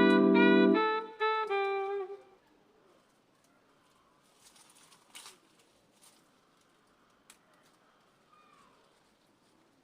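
Background instrumental music, a melody of held notes, that ends about two seconds in. Then near quiet with a brief faint rustle and a few faint clicks.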